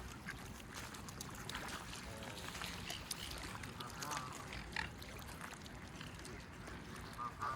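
Faint lakeside ambience with scattered soft waterfowl calls and grunts from the swans, geese and ducks gathered at the water's edge.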